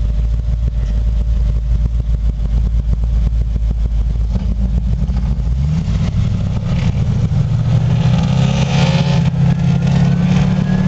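Hot-rod Chevy engine with a loud exhaust: a deep, low rumble at first, then the engine pitch climbs about halfway through and keeps rising as the car accelerates away.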